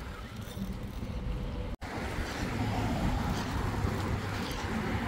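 Wind rumbling on the phone's microphone as a steady low noise. It cuts out for an instant about two seconds in and comes back a little louder.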